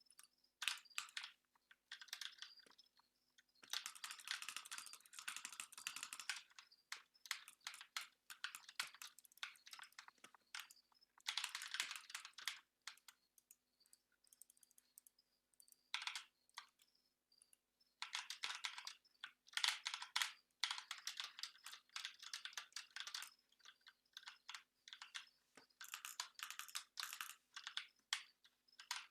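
Computer keyboard typing: dense runs of rapid keystrokes, about four of them, with pauses and scattered single key clicks in between.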